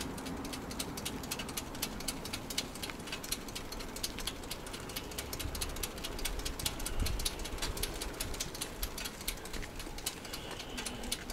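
Bicycle in motion: low wind rumble on the mounted camera's microphone, with frequent irregular sharp ticks and rattles from the bike and mount over the road surface.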